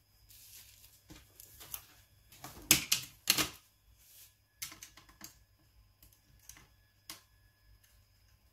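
A Nokia N93 phone being handled and set down on a sheet of bubble wrap: rustling plastic and clicks, loudest about three seconds in, then a few scattered single clicks.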